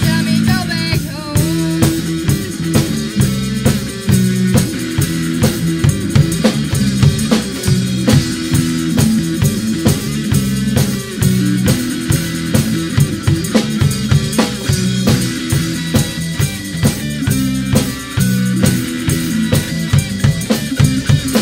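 Live amateur rock band playing an instrumental passage: a busy drum kit with snare and bass drum hits, an electric bass line stepping through notes, and electric guitar. A sung line trails off in the first second or so.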